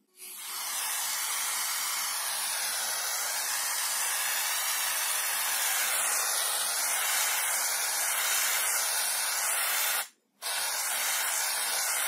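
Aerosol can of shaving foam spraying in a steady hiss as foam is dispensed. It breaks off for about half a second near the end, then sprays again.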